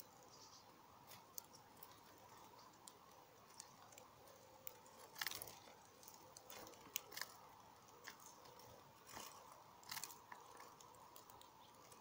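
Sparrows pecking and cracking seeds on a wooden feeder tray: faint scattered clicks and crunches, the loudest about five, seven and ten seconds in.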